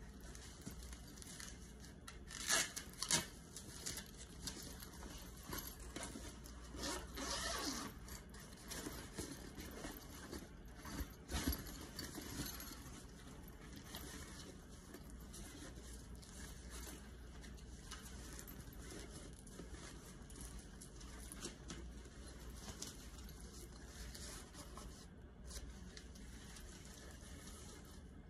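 Black nylon duffel bag being handled: the fabric rustles and a zipper is pulled as the bag's expansion section is opened, in a few louder bursts in the first half and fainter handling afterwards.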